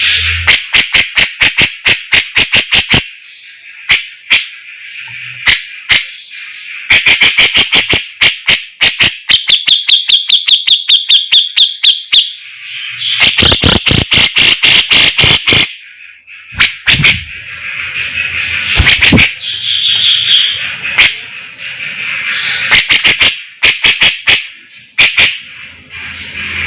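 Grey-cheeked bulbul (cucak jenggot) singing loudly in volleys of rapid, sharp repeated notes, about ten a second. The volleys are separated by short pauses, with warbling phrases in between.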